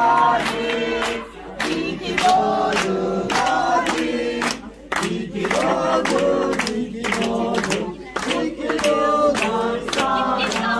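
A group of people singing a birthday song together, clapping along.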